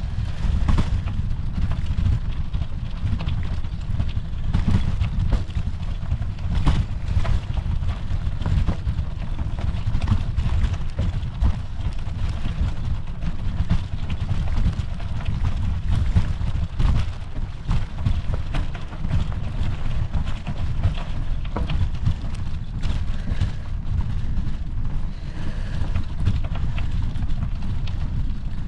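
Bicycle rolling along a gravel trail: a steady low rumble of wind and vibration on the microphone, with the crunch and rattle of the tyres over gravel and small bumps.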